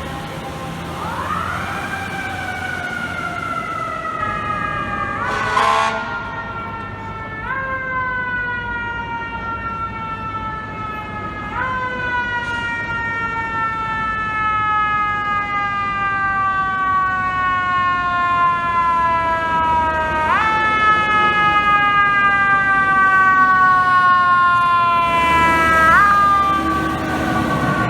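Fire truck siren, repeatedly pushed up sharply in pitch and then left to fall slowly over several seconds, about five times. Short bursts of noise come in twice, the louder one near the end.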